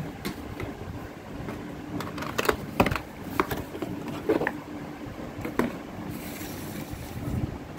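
Cardboard packaging box being handled and moved aside: scattered light knocks and taps, then a brief scraping rustle about six seconds in.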